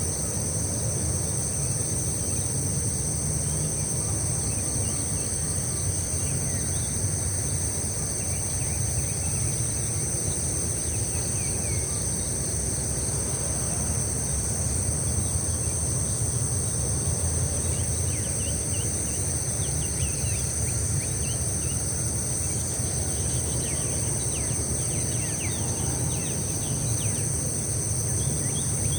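Steady high-pitched chorus of insects, crickets or cicadas, buzzing without a break over a low steady rumble, with scattered short bird chirps.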